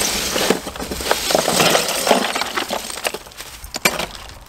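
Ice cubes clattering and clinking as a hand digs through a plastic cooler packed with ice, with a couple of sharp clicks about four seconds in.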